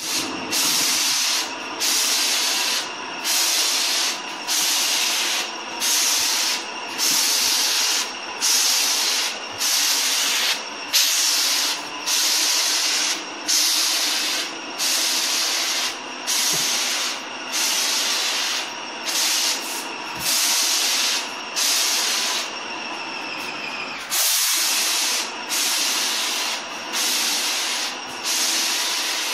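Airless sprayer spraying putty: a hiss that pulses on and off about three times every four seconds, over a steady hum. The pulses stop for about two seconds roughly three-quarters of the way through, then resume.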